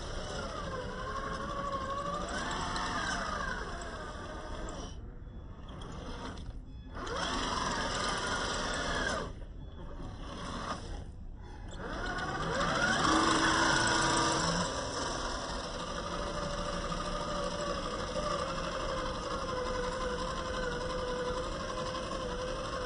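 Traxxas TRX-4 scale crawler's electric motor and geared drivetrain whining as it crawls over rocks. The pitch rises and falls with the throttle, and the sound drops out briefly twice near the middle.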